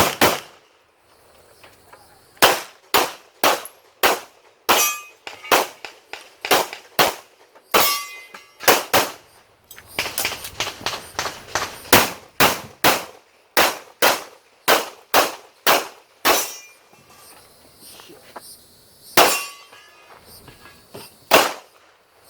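Pistol shots fired rapidly in strings, about three dozen in all, with short pauses between strings. Several hits set steel targets ringing with a clang.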